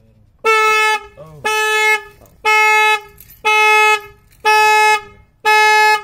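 2008 Dodge Caliber car horn honking six times, evenly spaced about once a second, each honk about half a second long and steady in pitch.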